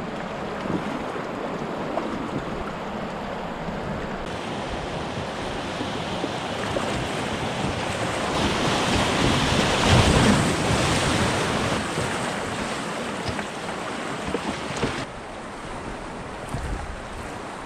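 River current rushing and splashing around the raft's pontoons, with wind buffeting the microphone. The water noise builds to its loudest for several seconds as the raft runs whitewater past a large boulder, then eases.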